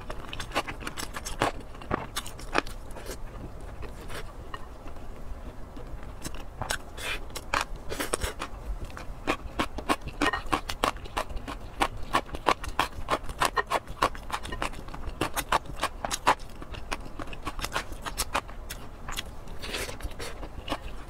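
Close-miked eating of soft, saucy meat: wet chewing and lip smacking in a dense run of clicks, with a spoon scraping in a glass bowl.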